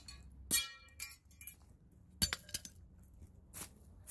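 Claw hammer striking the aluminium shell of an Apple mouse on a wooden stump: a handful of sharp metallic clinks, the first and loudest about half a second in with a short ring.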